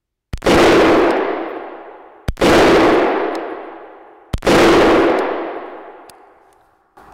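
SIG MCX rifle firing three single shots about two seconds apart. Each crack rings out and fades slowly in the echo of an indoor range.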